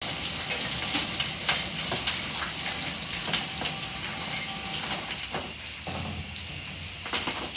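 Steady hiss of steam from a Polish Ol49 steam locomotive standing in steam, with scattered knocks and scrapes of coal being shovelled by hand into a coal tub.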